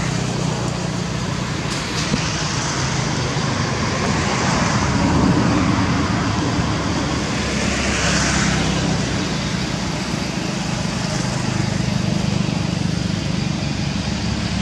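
Steady background traffic noise: a continuous low engine hum with a broad rushing sound over it.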